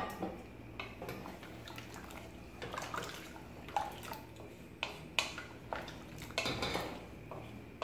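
A spatula stirring watery chickpea curry in a steel pressure cooker: liquid sloshing, with short, irregular scrapes and knocks of the spatula against the pot.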